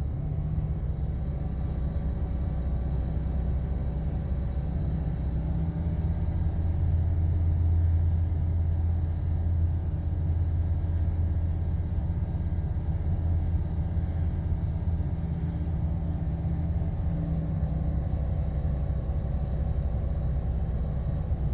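Ford 6.8-litre V10 engine running steadily with a low rumble, no revving; the owner says this engine has a misfire.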